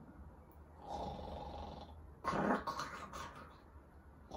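A man imitating snoring to act out the crow falling asleep: a long breathy inhale, then a louder, shorter snort-like snore a little past two seconds in, trailing off into soft breathing.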